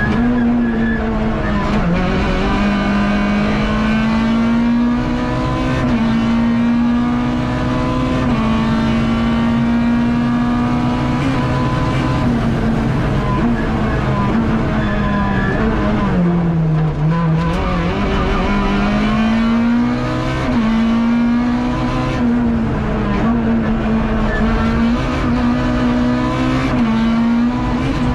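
Rally car engine heard from inside the cockpit, held at high revs flat out along the stage. The note drops briefly at each lift or gear change and climbs straight back. About two-thirds of the way in, the revs fall away deeply, as for braking into a corner, then rise again under acceleration.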